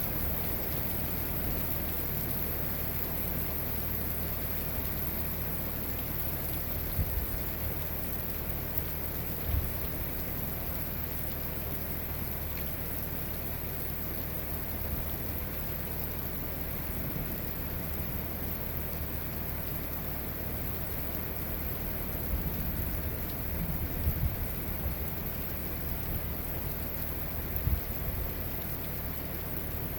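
Steady rain from a thunderstorm, with a few brief low thumps.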